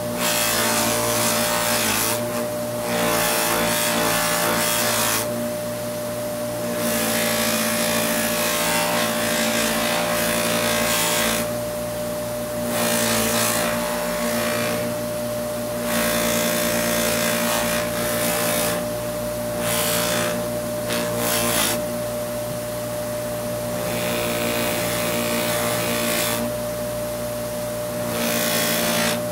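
Bench buffer motor running with a steady hum while a loose-leaf cloth buffing wheel rubs over a carved wooden slingshot fork with a CA glue finish, polishing it to a gloss. The rubbing comes as repeated hissing spells of a few seconds each as the piece is pressed to the wheel and eased off.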